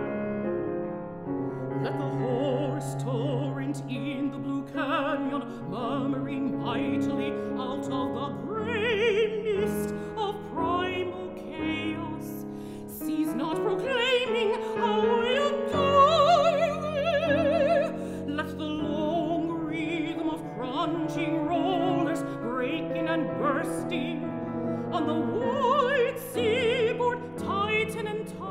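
Classical soprano singing an art song with vibrato, accompanied by piano; the voice comes in about a second in over the piano.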